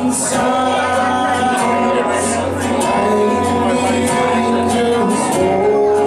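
Live acoustic guitar strummed, with a man singing long held notes over it.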